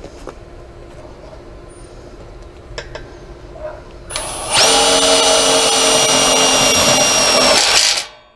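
Cordless drill driving a self-tapping screw into the gate hinge. One steady high whine, about three and a half seconds long, starts a little after four seconds in and cuts off suddenly near the end.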